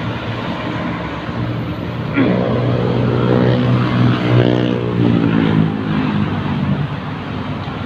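Road traffic noise, with a passing motor vehicle's engine hum coming up about two seconds in and dropping in pitch as it goes by, fading out around six seconds.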